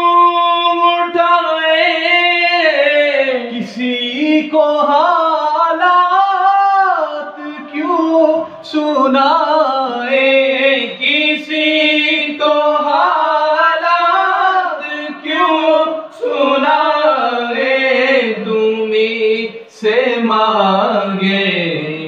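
A man singing an Urdu naat, drawing out long wavering melodic phrases. A steady held note gives way to a new phrase about a second in.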